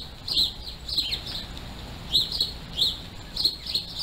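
Bird chirping: short, sharp high notes repeated irregularly, a few each second, over a low steady background hum.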